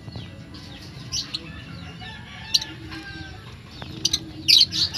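Bantam chickens clucking, with many short high chirps and a louder burst of sharp calls about four and a half seconds in.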